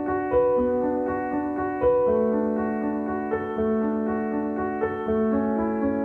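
Background keyboard music with held notes sounding together as chords.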